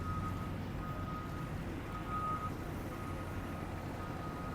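Road construction machine's diesel engine rumbling at a distance, with its reversing alarm giving a steady beep about once a second.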